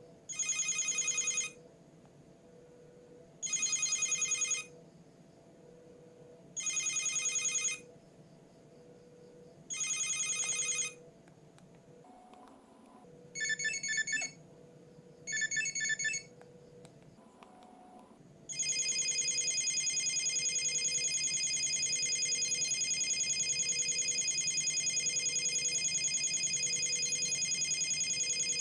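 Electronic ringtones from an au SH006 mobile phone: four rings of about a second each, three seconds apart, then two shorter warbling rings, then a long continuous fast-trilling ring starting about two-thirds of the way in.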